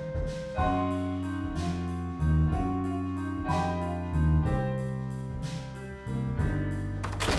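Background music: a slow keyboard piece of held chords over low bass notes that change every second or so, with a brief burst of noise near the end.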